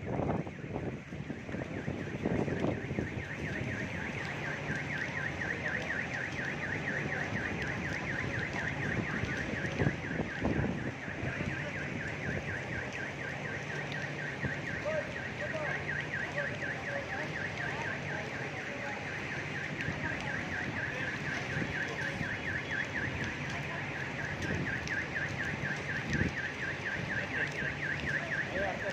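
A car alarm sounding with a rapid, steady pulsing tone, over a low hum.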